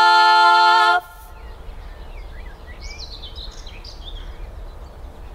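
A woman's sung note, held steady for about a second and then cut off abruptly. After it, birds chirp and sing over a low rumble of outdoor background noise.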